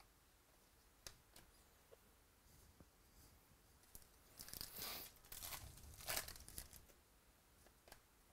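Foil wrapper of a trading card pack torn open and crinkled, in a burst of tearing that starts about four seconds in and lasts some three seconds. A few faint clicks come before it.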